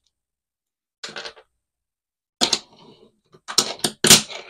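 A wooden fingerboard clacking on a desk top: a short scrape about a second in, then from about halfway a quick run of sharp clicks and knocks as the board's tail and wheels hit the desk.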